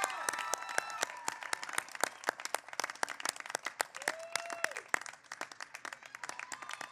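Audience applauding in many scattered claps, with a few voices calling out over it.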